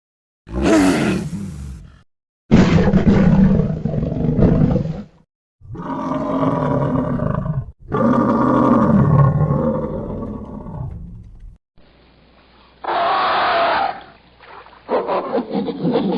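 Designed creature roars for a Gigantopithecus, made by layering chimpanzee, cat, Wampa, lion, buffalo and gorilla recordings. Four long roars follow one after another, then after a short pause comes a shorter call and a run of short, choppy sounds near the end.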